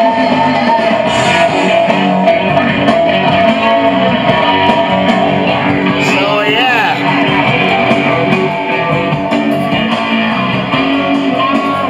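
A song with guitar and vocals playing through the speakers of a 1966 Magnavox console stereo.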